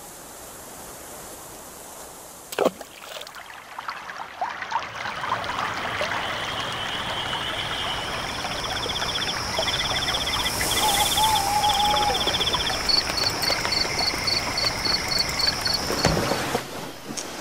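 Outdoor ambience of a stream of running water, with rows of short, quickly repeated high chirps over it. A sharp knock comes about two and a half seconds in, and a dull thump comes near the end.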